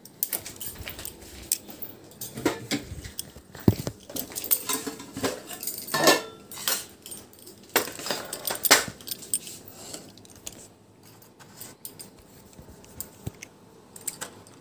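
Steel spoon and dishes clinking and knocking as they are handled, a busy run of sharp clinks for about the first nine seconds, then only a few.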